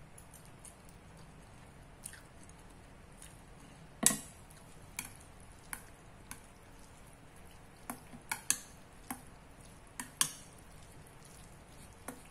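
Chopsticks clinking against a stainless-steel bowl while noodles are stirred and lifted, a dozen or so sharp irregular clinks, the loudest about four seconds in.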